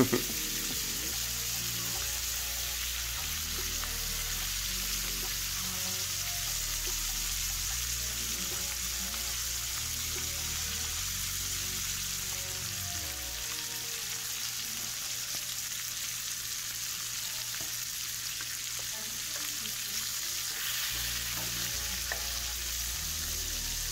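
Chicken thighs sizzling steadily in hot oil in a frying pan as they sear on their second side.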